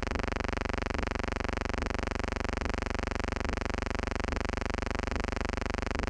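Steady buzzing hum with many overtones, with a faint tick recurring a little more than once a second.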